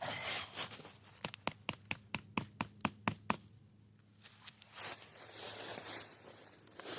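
A quick run of about a dozen sharp taps, five or six a second, with rustling before and after.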